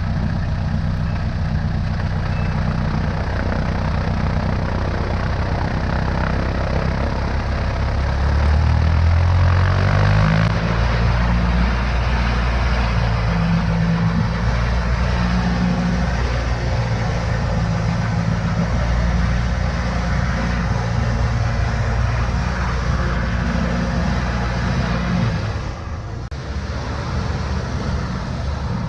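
A Cessna 152's four-cylinder Lycoming engine and propeller run loudly, heard from outside on the wing with air rushing past. The engine pitch climbs over several seconds as power comes up for takeoff, then holds steady. The level drops about 26 seconds in.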